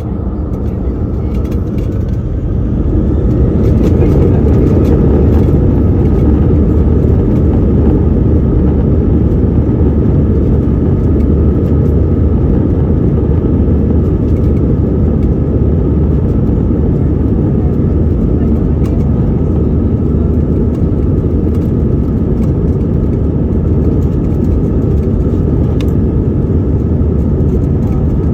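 An airliner's jet engines spool up to takeoff thrust over the first few seconds, then run loud and steady through the takeoff roll.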